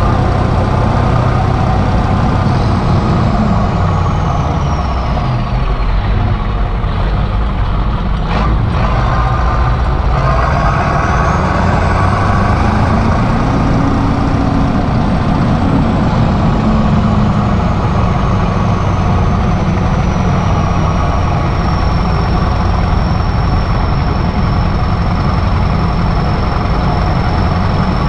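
Kirovets K-700 tractor's diesel engine running steadily while driving, with its newly fitted turbocharger giving a high whistle that falls, rises again, then holds a steady pitch in the second half. A brief knock about eight seconds in.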